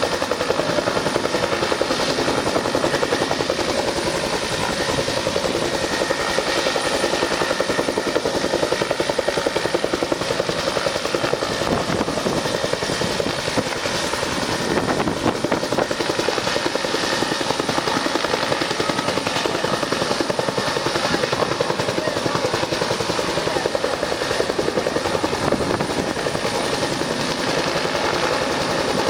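Search-and-rescue helicopter hovering during a winch rescue, its rotor beating steadily and evenly throughout.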